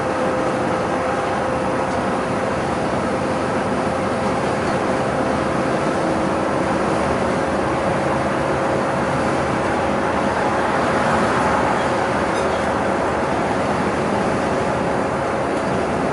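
Inside a city bus cruising at road speed: a steady drone of engine and tyre noise, with a steady pitched hum running through it.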